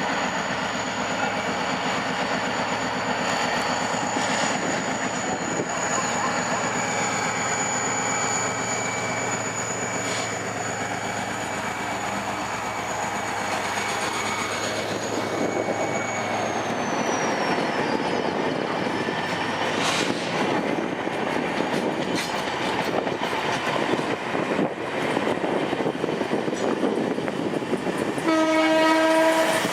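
EMD GT22 diesel-electric locomotive pulling a train out of a station: steady engine running and rolling noise with wheels clicking over rail joints. A horn blast sounds for about a second near the end.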